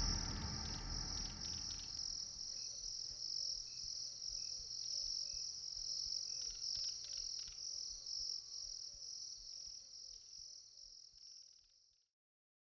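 The tail of the song fades out in the first couple of seconds. It leaves a chorus of crickets chirping, a steady pulsing high trill with faint short calls beneath it. The sound cuts off abruptly near the end.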